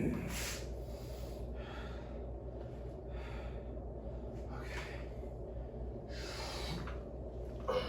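A man breathing hard while recovering between weightlifting sets: about five deep, airy breaths, one every second and a half, over a steady low hum.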